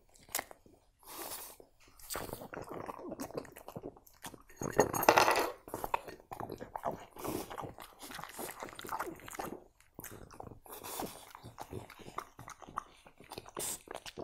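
French bulldog eating from a bowl: wet chewing and crunching in short, irregular bites, with one louder, longer rush of noise about five seconds in.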